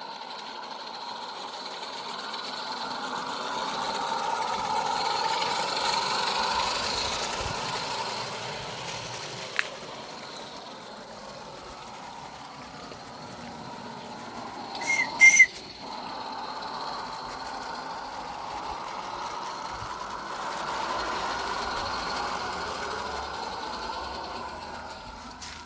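Accucraft Ruby live-steam locomotive running with a steady hiss of steam that swells and fades, and two short toots of its steam whistle about fifteen seconds in.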